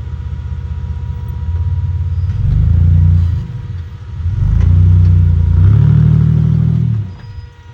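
Off-road vehicle's engine running with a low rumble, revved twice: a short blip about two and a half seconds in and a longer rev held from about four and a half to seven seconds, then falling back sharply near the end.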